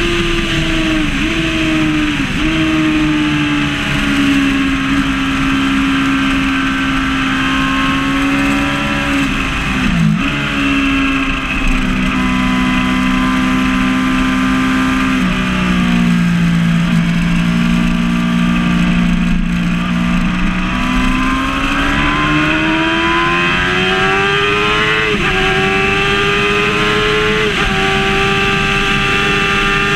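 Yamaha R6 (5EB) 600cc inline-four sportbike engine at track speed. The note drops in short steps near the start and dips sharply about ten seconds in as the rider changes down. It then holds lower and climbs steadily from about twenty seconds in, changing up once near the end.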